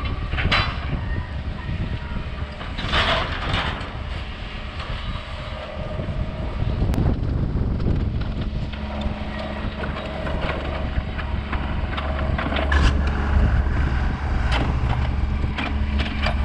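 John Deere 120 trackhoe's diesel engine running under load as the excavator works its arm, a steady rumble that grows louder in the second half as it swings closer. Occasional sharp knocks are heard throughout.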